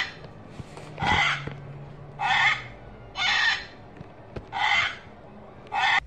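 Recorded scarlet macaw calls played from the sound box of a Wild Republic Audubon plush bird: five short squawks about a second apart.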